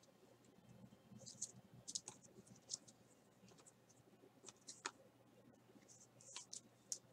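Faint, irregular clicks and scrapes of rigid plastic trading-card holders knocking and sliding against each other as they are handled.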